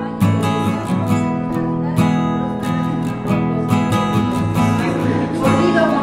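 Music: an acoustic guitar strumming chords in a steady rhythm.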